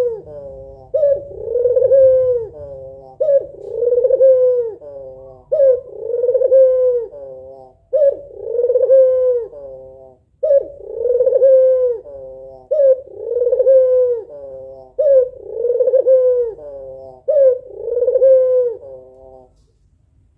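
White female puter dove (a domestic collared dove) cooing over and over, about nine calls evenly spaced a little over two seconds apart. Each call is a short sharp note followed by a drawn-out rolling coo, and the calling stops near the end. This is the female's call to draw a male.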